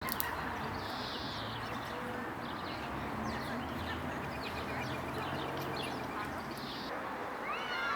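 City ambience: a steady background hum of traffic with small birds chirping and singing over it, many short high chirps scattered throughout.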